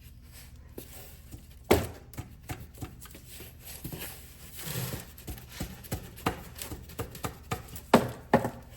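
Irregular knocks, clicks and clatter from tools and parts being handled, with two louder knocks about two seconds in and near the end.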